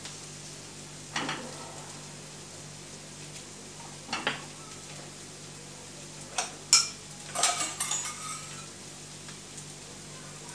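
Butter melting in a nonstick frying pan with a faint, steady sizzle, while a silicone spatula stirs it. Short knocks and clinks of kitchen utensils come about one and four seconds in, and a quick cluster of clatters a little after the middle.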